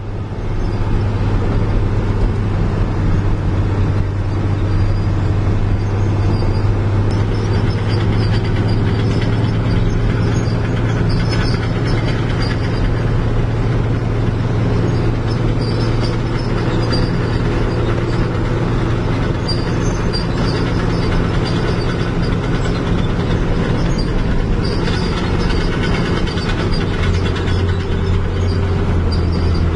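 Heavy diesel engine running steadily with a deep, even drone. Its pitch drops slightly about 25 seconds in, and light scattered clicks sound over it.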